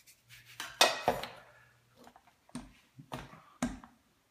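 Rolling pin being rolled back and forth over whole wheat tortilla dough on a floured countertop, in short strokes about two a second, after one louder knock about a second in.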